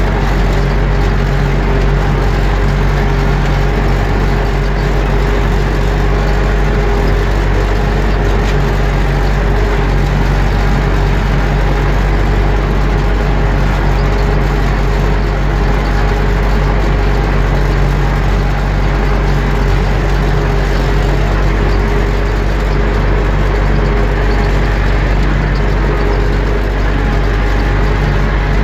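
Universal U650 tractor's four-cylinder diesel engine running steadily under load, heard from inside the cab while the tractor drives across the field.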